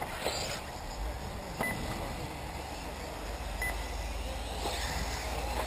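Electric 1/8-scale RC off-road buggies running on the track, with a brief swoosh as one passes just after the start. Two short high beeps come about two seconds apart, over low wind rumble on the microphone.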